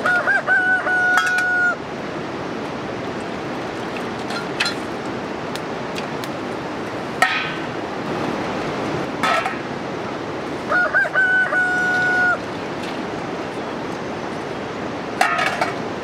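A rooster crows twice, each crow a rising call that levels into one held note for about a second and a half, once right at the start and again about eleven seconds in. Between the crows, steel plates and bowls clink a few times as they are washed.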